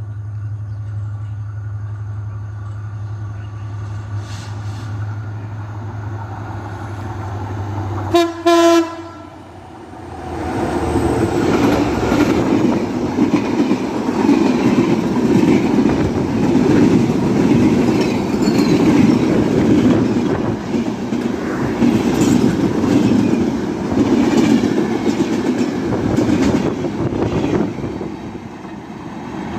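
Simanta Express passenger train coming through: a steady low hum, then a short loud horn blast about eight seconds in. From about ten seconds on, the train rushes past at speed with loud rumbling and wheels clattering over the rail joints, easing off near the end.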